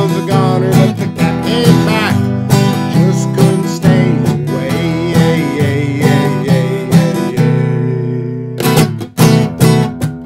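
Steel-string acoustic guitar, a 1971 Yamaki, strummed while a man sings in a full, forceful voice. In the last couple of seconds the guitar strums on alone.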